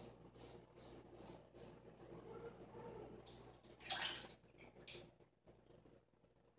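Safety razor scraping through thick beard stubble in short strokes, about two to three a second. About three seconds in there is a sharp click, then a brief rush of water.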